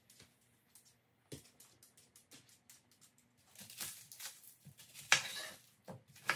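Kitchen knife cutting an onion in half on a cutting board, with a sharp knock as the blade hits the board about five seconds in and another near the end. Before it, light scraping, clicks and papery rustling from a vegetable peeler and onion handling.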